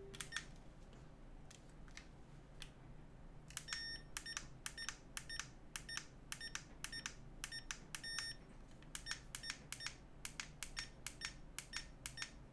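Eachine VR007 FPV goggles giving short, faint beeps as their buttons are pressed to step through receiver channels in search of a video signal. A few scattered beeps come first, then from about three and a half seconds in a quick, irregular run of two or three a second. No signal is found.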